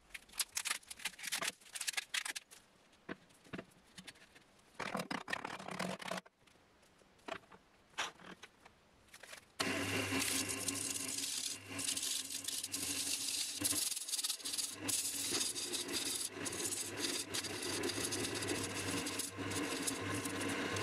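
Irregular clatters, scrapes and knocks, then about ten seconds in a wood lathe starts up with a steady motor hum while a turning gouge cuts the spinning epoxy-resin-soaked pine blank, a continuous shaving noise with a few brief dips.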